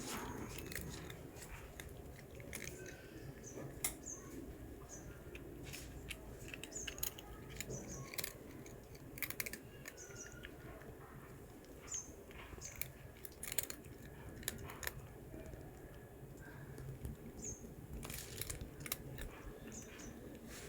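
A cat crunching and chewing murukku, a crisp fried snack, in irregular bursts of crunches. Small birds chirp in the background.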